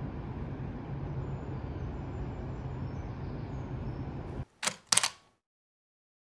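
Steady low rumble of outdoor city ambience that cuts off abruptly about four and a half seconds in. It is followed by a camera shutter sound: two sharp clicks about a third of a second apart.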